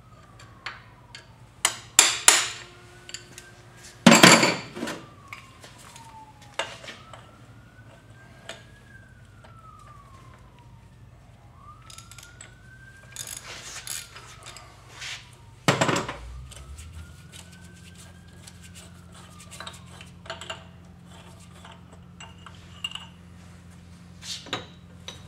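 Hammer strikes on a punch against the steel lock washer and spindle nut of a Dana 30 front hub, straightening the washer's ears: sharp metallic clinks and taps at irregular intervals, the loudest about four seconds in and another near sixteen seconds. A faint wail rises and falls in the background, like a distant siren.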